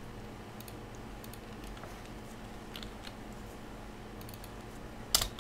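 Sparse computer keyboard and mouse clicks over a low steady hum, with a louder quick run of key clicks about five seconds in.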